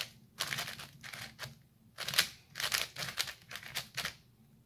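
Layers of an Angstrom WuQue 4x4 speedcube being turned by hand, in quick runs of plastic clicks, with a short pause about a second and a half in and another near the end.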